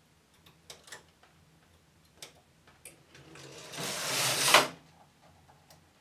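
Knitting machine carriage pushed across the metal needle bed: a sliding rush that builds for about a second and a half and stops abruptly. Before it come a few light clicks as needles are handled.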